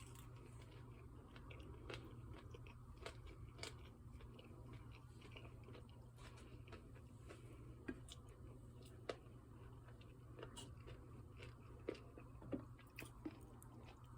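A person chewing and biting potato wedges close to the microphone: faint scattered crunches and mouth clicks, a few of them sharper, over a steady low hum.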